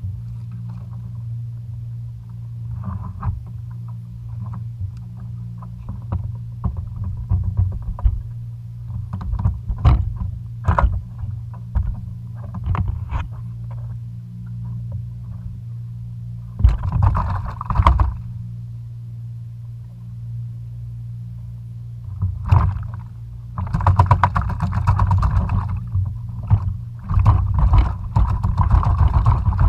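A freshly landed bonito thrashing on a plastic kayak's deck while it is handled, giving scattered knocks and clicks, then bursts of rapid drumming and rattling. The bursts come about halfway through and again, loudest, over the last several seconds. A steady low rumble runs underneath throughout.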